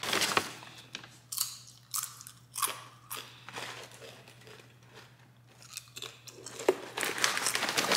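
A person biting and chewing crunchy tortilla chips: irregular crunches, busy for the first few seconds, fading to a few quiet chews in the middle, then coming thick again near the end.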